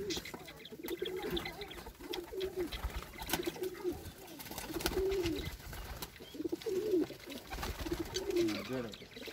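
Indian fantail pigeons cooing: a string of low coos that rise and fall, about one a second.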